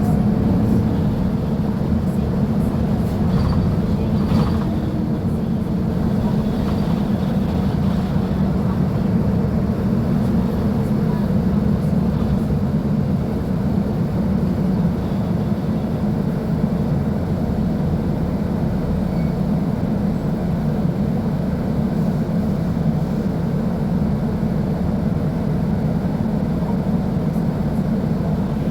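Diesel engine of a Mercedes-Benz OF-1724L Bluetec 5 city bus running with a steady, low drone.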